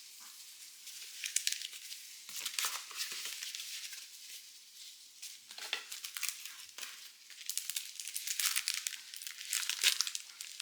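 Packaging crinkling as it is handled and unwrapped, in irregular crackly bursts that come and go.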